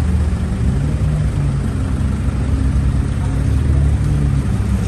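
Audi RS6 Avant's twin-turbo V8 running at low revs as the car rolls slowly forward, a loud, steady low rumble.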